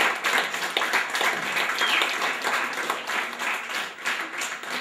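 A crowd applauding: many hands clapping steadily, with a few voices mixed in.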